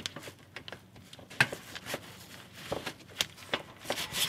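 Scattered small clicks and knocks of a plastic wiring plug being handled and pushed onto a speedometer sending unit on the transmission, with gloved hands rubbing on it.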